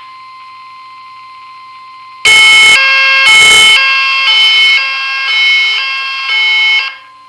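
Fire alarm voice evacuation system sounding its alarm tone. A faint steady beep-tone runs for about two seconds. Then a loud, harsh multi-pitch tone begins, stepping between pitches about every half second, and it cuts off just before the end.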